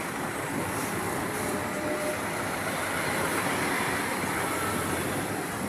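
Jeepney riding along a wet road: a steady, even mix of engine and tyre noise.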